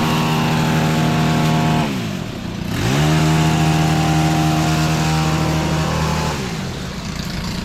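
Small two-stroke engine of a hedge trimmer running at full throttle. Its pitch dips briefly about two seconds in as the throttle is eased off and squeezed again, then falls away about six seconds in as it is throttled down.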